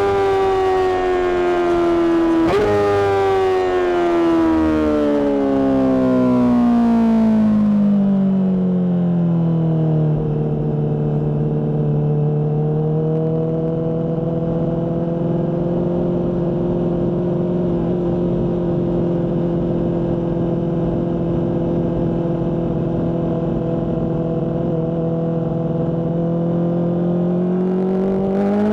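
Honda CBR600RR inline-four engine through a Mivv aftermarket exhaust: a sudden rise in revs about two seconds in, then the engine note falls steadily as the bike slows. It then holds a steady pitch for about fifteen seconds and rises again near the end as the rider accelerates.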